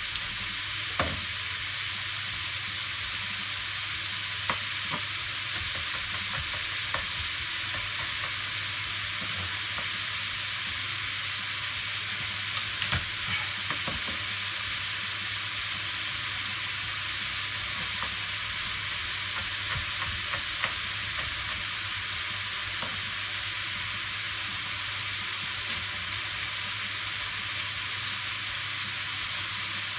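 Diced pancetta frying in oil in a wok, sizzling steadily. A few short light clicks and knocks stand out from it now and then.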